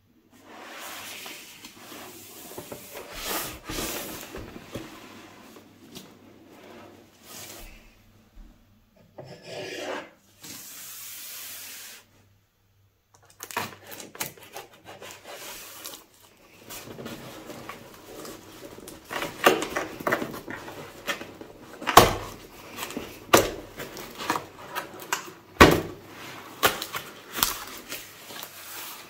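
Gloved hands rubbing, tapping and scraping over a cardboard box, then working its flaps open, with a run of sharp cardboard clicks and snaps in the second half, the loudest about 22 and 25 seconds in.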